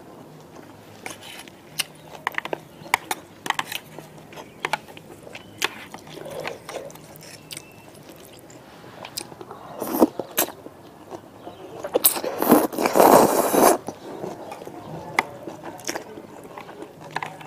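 Eating sounds of a woman eating noodles: chopsticks and a spoon clicking and scraping against a metal tray, chewing, and a loud, long slurp of noodles about twelve seconds in.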